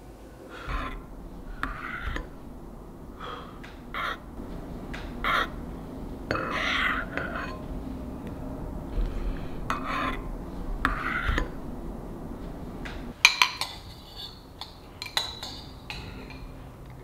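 Dishes and cutlery clinking and scraping in a string of short separate sounds, with a quick run of sharp clicks about thirteen seconds in.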